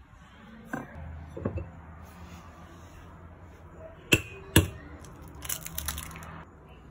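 A brown hen's egg knocked twice against the rim of a bowl, two sharp cracks about half a second apart, then a short run of crackling as the shell is pulled open over the bowl.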